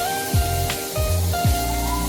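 Background music: steady held synth notes over a deep, booming bass beat, with a hissy wash and light ticks up high.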